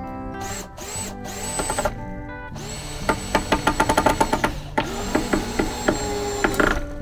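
Cordless drill driving screws: a few short spins, then two longer runs of about two seconds each with rapid clicking, over background guitar music.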